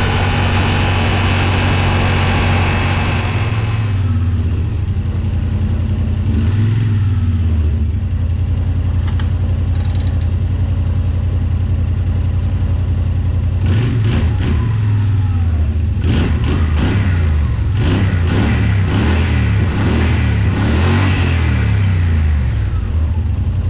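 Yamaha Wolverine X4's 850 parallel-twin engine running on its freshly rebuilt top end after flood damage. It idles steadily, is revved once about six seconds in, then is blipped up and down repeatedly through the second half.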